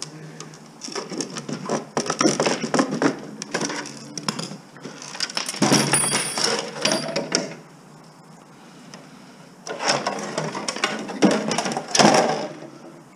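Small metal parts and screws clinking and clattering as a computer slot card is dismantled by hand. It comes in irregular runs of clicks and knocks, quieter for a couple of seconds before and after the middle run.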